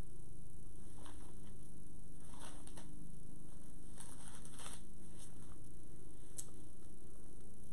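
Pages of a Bible being leafed through, with a few soft paper rustles, over a steady low background hum.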